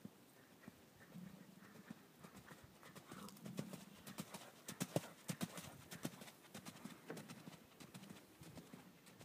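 A ridden horse's hooves striking dirt arena footing in a steady clip-clop rhythm. The hoofbeats grow louder as the horse passes close about halfway through, then fade as it moves away.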